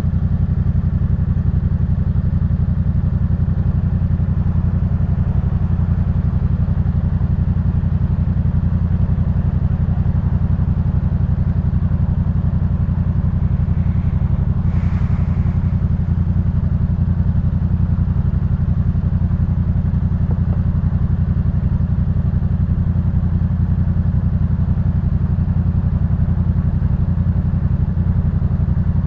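2018 Yamaha MT-07's parallel-twin engine running through a Jeskap K4 full exhaust, holding a steady low engine speed with no revving. A faint brief higher sound comes about halfway through.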